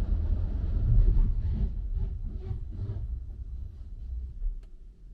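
Mechanical parking system's car-transport machinery running with a low rumble and winding down, with a few rhythmic clacks midway and a sharp click near the end.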